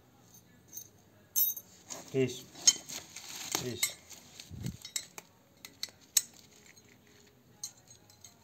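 Handling noise from gear-shift linkage parts: light metallic clinks and clicks, with a plastic parts bag crinkling about two to four seconds in.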